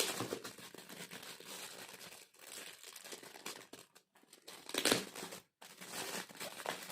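Gift wrapping paper crinkling and tearing as a present is unwrapped by hand, with a louder rip about five seconds in.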